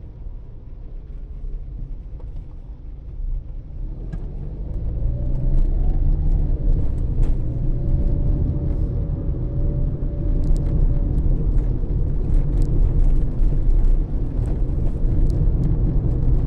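Car driving, with engine and road rumble. About four seconds in the car pulls away: the engine note rises in pitch, then holds steady as it gets louder. Scattered light clicks are heard in the second half.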